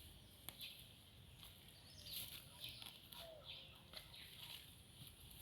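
Faint chickens clucking over a quiet background, with a few soft clicks.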